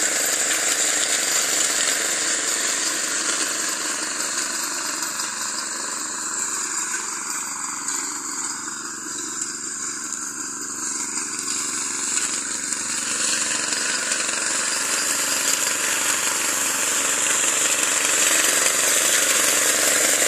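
Small petrol engine on a walk-behind brush cutter running steadily while its spinning blades cut through weeds and saplings. The sound fades for a few seconds in the middle as the machine moves away, then grows louder again near the end.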